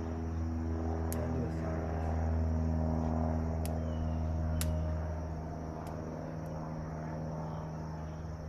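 A steady low mechanical drone, like a motor or engine running, that grows louder a couple of seconds in and eases off again, with a few light clicks scattered through it.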